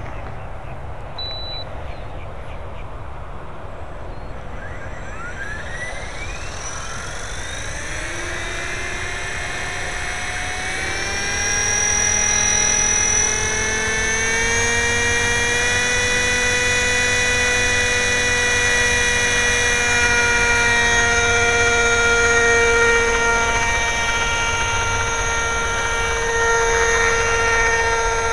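450-size RC helicopter in an EC-135 scale body spooling up: its motor and rotor make a whine that rises in pitch over several seconds, then holds steady and grows louder as the rotor reaches flying speed.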